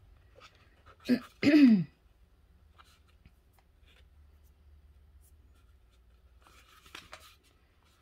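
A brief wordless vocal sound about a second in, falling in pitch. After it, faint rubbing and scratching as jute rope is pressed and wound onto a plastic egg.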